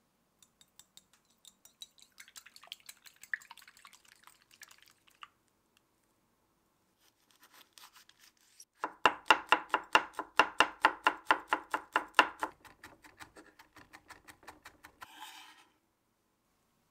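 A small wire whisk clicking quickly against a ceramic bowl as raw eggs are beaten, then a knife mincing a red chili pepper on a bamboo cutting board in rapid, even chops, about four to five a second, the loudest sound. The chopping ends with a brief scrape of the knife across the board.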